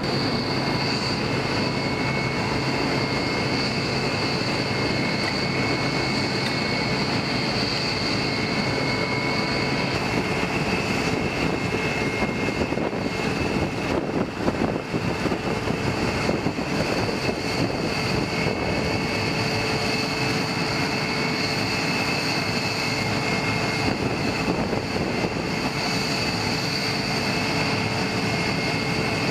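Steady turbine whine and roar of jet aircraft or ground-support turbines on an airfield flight line, several high tones held level over a broad rushing noise.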